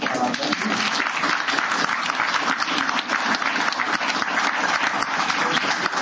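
Audience applauding: many hands clapping in a dense, steady patter.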